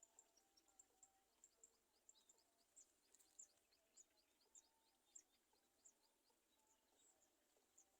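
Very faint background birdsong: short, high-pitched chirps repeated a few times a second, with a quick run of thin descending notes in the middle.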